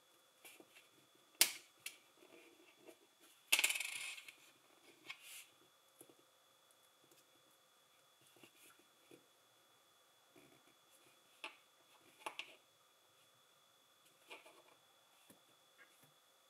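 Plastic LEGO pieces clicking and clattering: a sharp click about a second and a half in, a short rattle of loose pieces around three and a half seconds in, then scattered light clicks.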